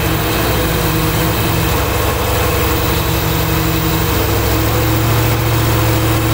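1995 GMC Suburban's 5.7-litre TBI V8 running steadily with the passenger-side valve cover off and the rocker arms exposed. A little valvetrain clacking is still heard after the last rocker arm was adjusted.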